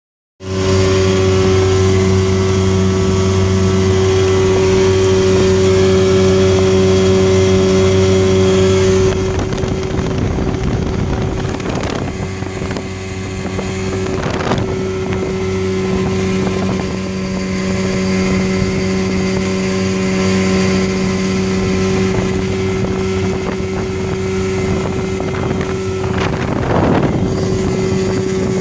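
1977 Johnson 55 hp two-stroke outboard running steadily with the boat under way at speed, holding one even pitch. About nine seconds in, a rushing of wind and water comes up over the engine.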